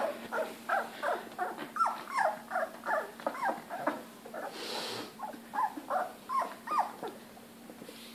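Three-week-old Labrador retriever puppies whining and squealing: a quick run of short, falling cries, about three a second, with a brief break about halfway through.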